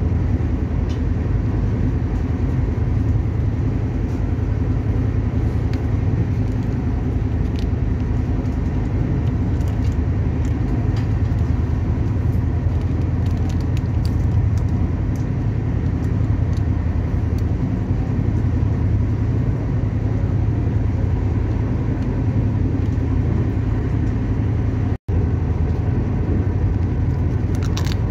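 Steady low rumble of the Shatabdi Express passenger train running at speed, heard from inside the coach, with faint scattered ticks. The sound cuts out for a split second near the end.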